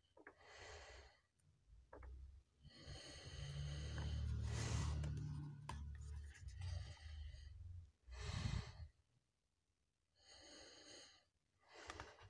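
Pages of a softcover comic book being turned by hand: about five soft rustling swishes of paper. A longer, louder stretch of rustle with low handling rumble comes in the middle as the book is held and shifted.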